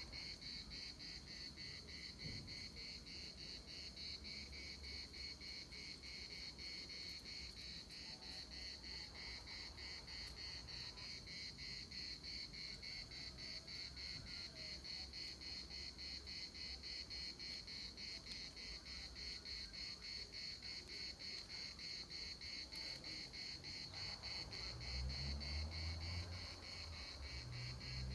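Insects trilling steadily at a high pitch with a fast, even pulse. A faint low rumble comes in near the end.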